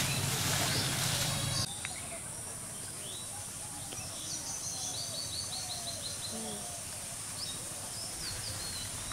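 Small birds chirping in rural outdoor ambience, with a quick run of repeated high notes about four seconds in and scattered calls after. A louder rushing noise fills the first second and a half, then cuts off suddenly.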